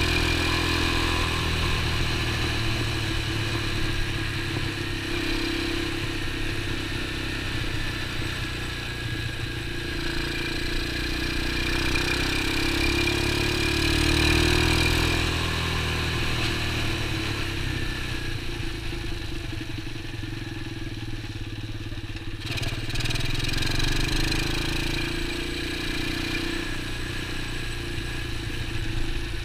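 X19 super pocket bike's small engine running while the bike is ridden, the pitch rising and falling in long swells as it speeds up and eases off. About two-thirds of the way through it drops to low revs briefly, then picks up again.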